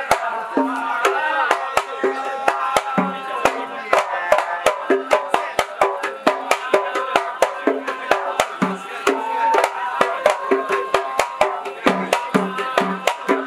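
Zarbadi performance of a Hadrami religious poem: a group of men singing together over small double-headed hand drums (marwas). The drums play a fast, steady beat of sharp cracks mixed with short, low, pitched thumps.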